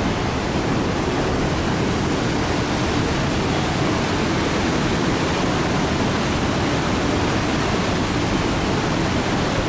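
Mistaya River rushing through its narrow rock canyon: a steady, unbroken water noise.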